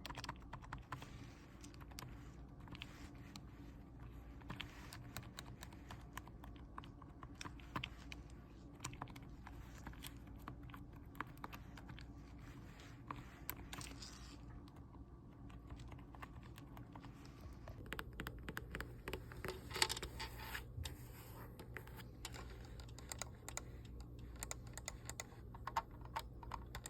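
Typing on a computer keyboard: a fast, irregular run of key clicks, thinning out briefly about halfway through, then busier and louder about two-thirds of the way in.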